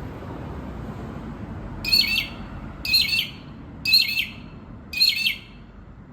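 A young magpie calling four times, about once a second, with short harsh, scratchy calls.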